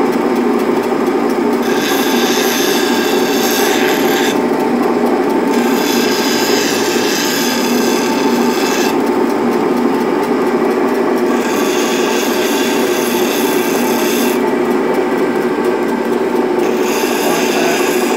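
Bench grinder running steadily while a steel skew chisel is pressed to the spinning stone wheel in four grinding passes of two to three seconds each, a harsh hiss of metal being ground away; between passes, with the tool lifted off, only the grinder's motor and wheel are heard. The chisel is being pivoted across the wheel to grind a slightly radiused (pivot-ground) cutting edge.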